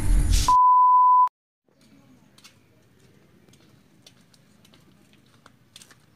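Loud intro music cuts off about half a second in, and a single steady high electronic beep follows, just under a second long. After it there is only a faint background with scattered light ticks.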